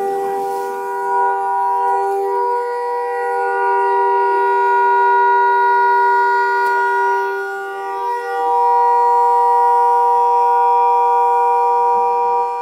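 A burning car's horn sounding continuously in two steady, unwavering tones, dipping briefly about eight seconds in. A horn held on like this is typical of fire shorting the horn wiring.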